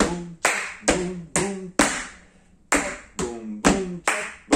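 Body-percussion hand claps in a "tchac, boum, boum, tchac, boum, boum, tchac" rhythm, about two hits a second, with a short vocal syllable sounded along with each hit. The pattern breaks off about two seconds in for a short pause, then starts again.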